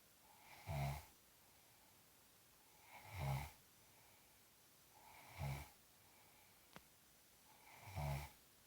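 Slow, regular snoring: four short snores about two and a half seconds apart, with a faint click between the third and fourth.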